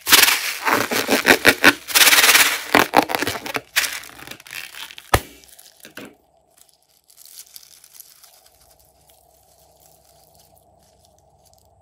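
Rubber balloon being squeezed and cut open: loud crackling, tearing noise for about four seconds, then a single sharp snap about five seconds in. After that only a faint steady hum.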